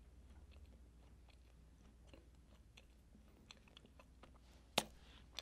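Faint, closed-mouth chewing of a soft, moist chocolate chip cookie, with small scattered mouth clicks. One sharper click comes a little before the end.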